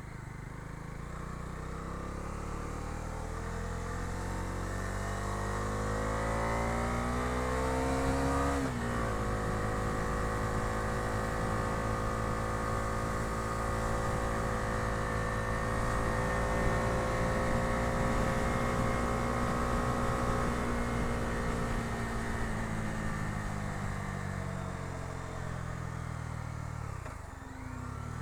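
Bajaj Dominar 250's single-cylinder engine accelerating with rising pitch, then dropping suddenly at an upshift about eight and a half seconds in. After the shift it holds a steady pitch at cruising speed, and the pitch falls gradually as the bike slows near the end.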